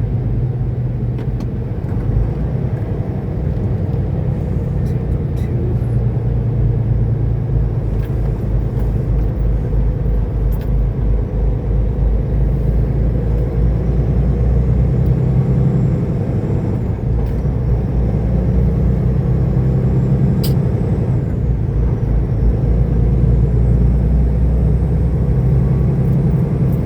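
Semi truck's diesel engine running while driving, heard from inside the cab as a steady low drone that shifts slightly in pitch as engine speed changes.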